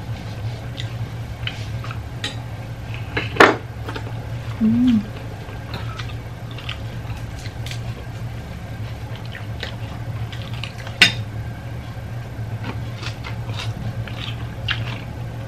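Dishes and utensils clinking on a table during a meal eaten by hand: scattered light clicks, with two sharper clinks about three and a half and eleven seconds in, over a steady low hum.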